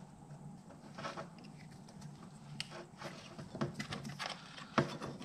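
Hands handling outboard motor wiring harness plugs and cables: a scattered run of light plastic clicks and rustles, the sharpest click near the end, over a steady low hum.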